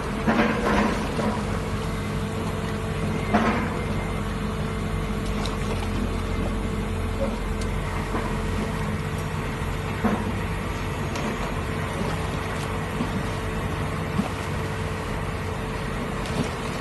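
Heavy machinery of a jet grouting drill rig running steadily with a low hum, with a few short knocks: a couple in the first second, one about three seconds later and one near the middle.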